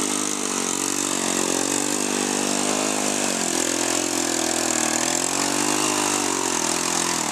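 1982 Honda XL125S dirt bike with a Honda ATC200S three-wheeler's single-cylinder four-stroke engine running under load as the bike churns through a muddy pond. The revs rise and fall, dipping about three and a half seconds in.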